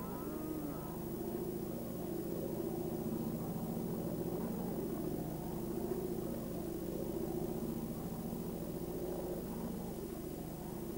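A steady engine drone that holds one pitch, with a low hum beneath it.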